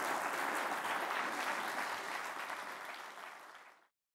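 Audience applauding, a dense patter of many hands clapping that thins out and then cuts off abruptly near the end.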